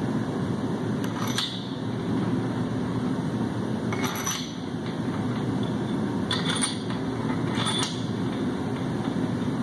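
Steady mechanical hum of shop machinery, with four short metallic clinks of hand tools and bolts on a 7.3 Power Stroke engine block as the main bearing caps go on.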